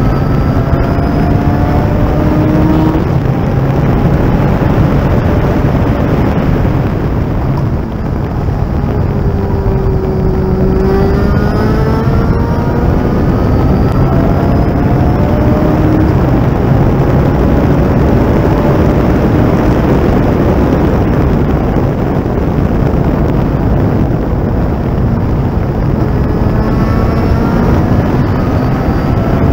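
Thunder Roadster race car's engine at full throttle, heard from onboard; its pitch climbs again and again through the gears. About eight seconds in it eases off briefly, then pulls hard again.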